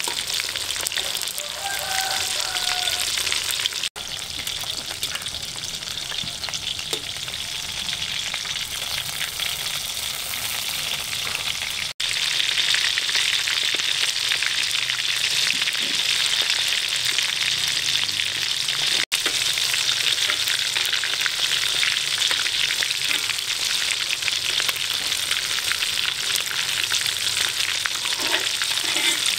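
Breaded food frying in hot oil in a pan: a dense, steady sizzle of bubbling oil. It breaks off for an instant three times and is louder after about twelve seconds in.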